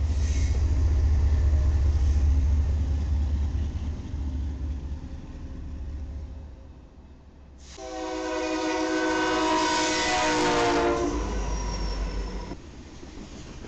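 Diesel freight locomotive rumbling as it moves past. About eight seconds in, a locomotive's multi-chime air horn starts abruptly and blows for about three and a half seconds, its pitch sagging at the end as the train passes at speed, followed by the rumble of the passing cars.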